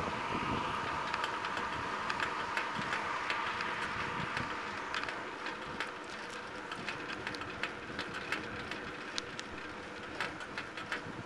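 A bicycle rolling along a paved road: a steady rush of wind and tyre noise with irregular clicks and rattles from the bike as it goes over rough, patched pavement.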